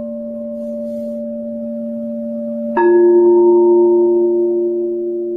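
Singing bowls ringing: one bowl's long steady tone hums on, then a second, higher-pitched bowl is struck nearly three seconds in, louder, and the two ring together as they slowly fade.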